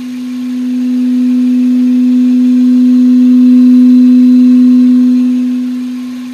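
A loud, steady droning tone from the throttle body of a 2008 Hyundai Tiburon GS, made much louder by the Injen cold air intake acting as an amplifier. The pitch holds steady while the drone swells to its loudest about four seconds in, then fades near the end.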